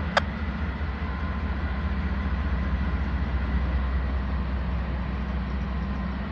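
Norfolk Southern freight train approaching slowly behind its diesel locomotives, a steady low rumble of engines and rolling wheels. A single sharp click sounds right at the start.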